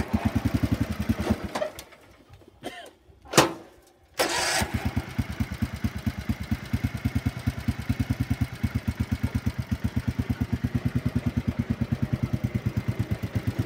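Tecumseh engine of an old John Deere garden tractor running briefly and dying about a second and a half in. About four seconds in it is cranked again, catches and runs steadily with an even putt-putt rhythm. It is a badly running engine that keeps stalling.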